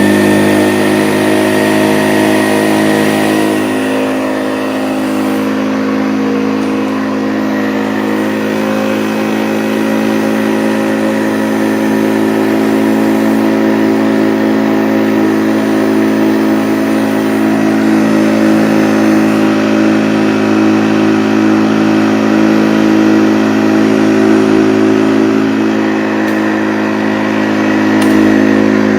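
1970s Hoover Convertible U4007 upright vacuum cleaner running steadily, its motor and metal beater-bar brush roll making a loud, even hum with several steady tones.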